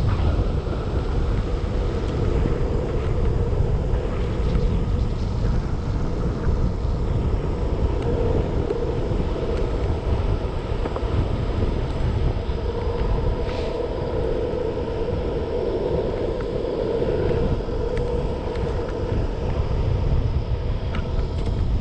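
Steady wind noise rushing over the microphone of a rider moving at speed along a paved path, with a low, continuous rumble.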